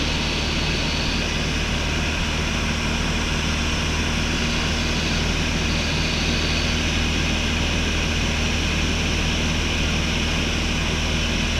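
Cessna 150's four-cylinder Continental O-200 engine and propeller droning steadily in level flight, over a constant rush of wind.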